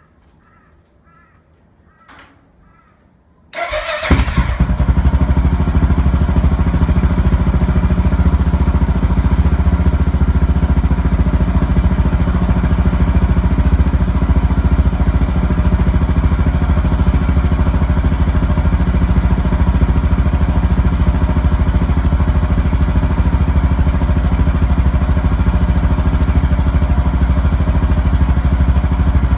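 2014 Suzuki DR650's single-cylinder four-stroke engine breathing through a Yoshimura muffler on the stock header pipe: it starts about three and a half seconds in, catches almost at once, and then idles steadily with an even rumble.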